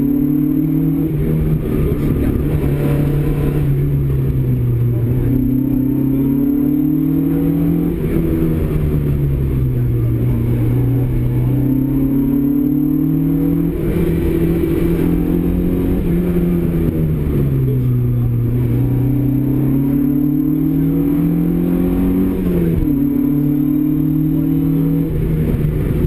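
Opel Kadett GT/E rally car's four-cylinder engine heard from inside the cabin, being driven hard. The revs climb again and again and drop sharply at each gear change or lift for a bend.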